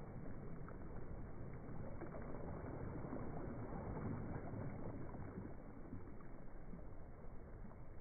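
Small, gentle waves lapping and washing onto a sandy shore, a steady wash that swells about halfway through as a wave runs up the sand.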